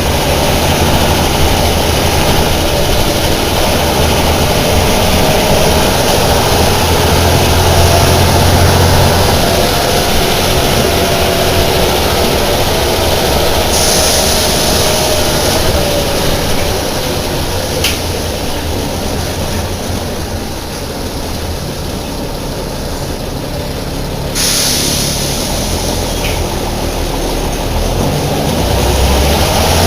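Deutz BF6L 913 C air-cooled six-cylinder turbodiesel of an El Detalle OA 101 bus running steadily, its pitch slowly rising and falling as the revs change.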